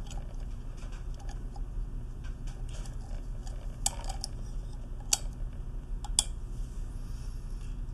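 Light metallic clicks and taps, with three sharper clicks about a second apart in the second half, as the check spring retainer is pressed down against its spring and seated in the brass body of a Watts 800M4 pressure vacuum breaker. A low steady hum runs underneath.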